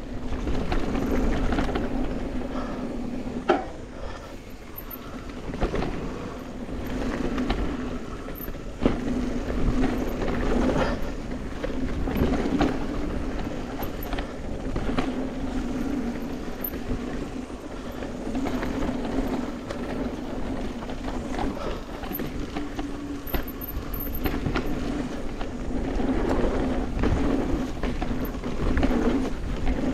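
Mountain bike rolling over a rough dirt trail: continuous tyre and trail noise with frequent small rattles and clicks from the bike, and wind rumble on the microphone.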